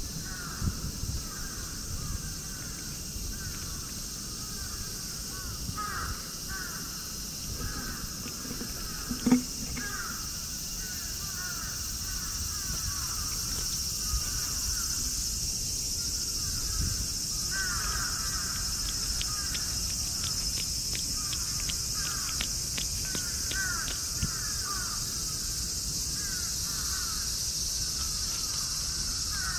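Outdoor ambience: a steady high insect drone, with short, falling bird chirps repeating in runs throughout. A single sharp knock comes about nine seconds in.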